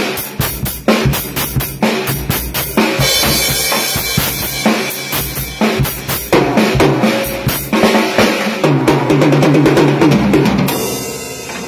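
Acoustic drum kit played live: kick, snare and toms under cymbals in a steady run of strokes, building to a very fast fill near the end. The cymbals and drums are then left ringing and fading as the playing stops.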